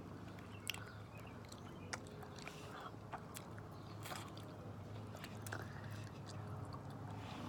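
A mouth chewing honeycomb, the wax worked like gum: faint, scattered wet clicks and smacks over a steady low hum.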